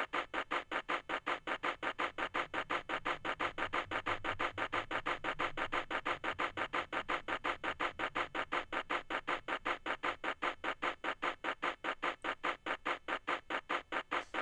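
A looped steam-train chuffing sample played through a cheap clock radio's small speaker, sounding crunchy and lo-fi, at an even rate of about five chuffs a second. A low rumble swells and fades in the middle.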